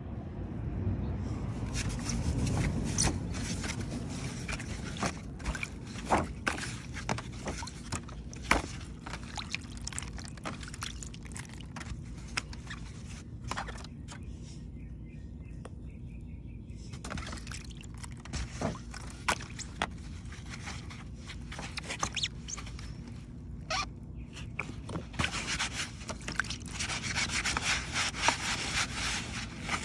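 Block of Sahara dry floral foam in soapy water, giving scattered small crackles and clicks, with a quieter stretch about halfway through. Over the last few seconds, fingers press into the soaked foam and the crackling grows denser and louder, a wet crunching.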